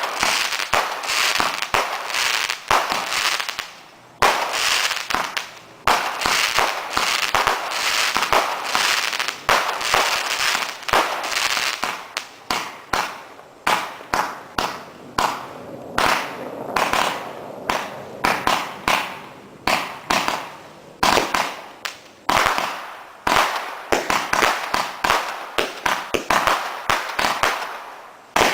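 Consumer firework cake firing a rapid series of sharp bangs and crackles, several a second, with a few brief lulls.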